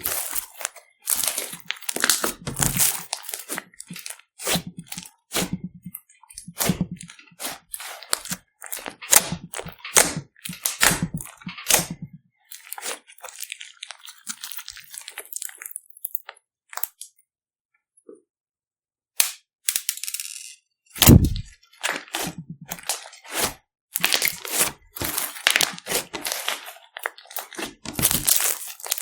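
Slime being squeezed and pressed by hand, making rapid runs of crackling clicks and pops. The sound stops for about two seconds a little over halfway through, and one louder low thump follows soon after.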